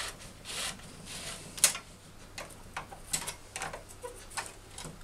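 Irregular clicks and light scraping of a knitting machine's metal needles as a small comb holds them down along the needle bed while the needle-retainer strip is pushed back in past them. The sharpest click comes a little under two seconds in, with a few more around three seconds.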